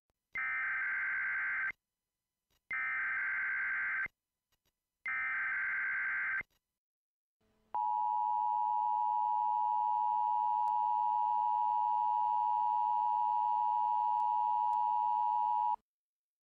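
Emergency Alert System tones: the SAME data header sent three times as short bursts of warbling digital data, each about a second and a half long. After about a second's pause, the two-tone attention signal sounds as a steady dual-pitch tone for about eight seconds and then cuts off sharply, marking the start of a high wind warning.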